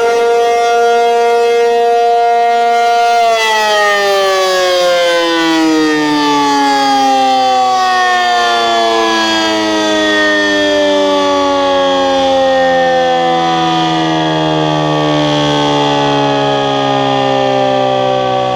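Outdoor storm warning siren sounding during a test. Its tone holds steady at the top pitch for about three seconds, then slowly winds down in a long falling glide.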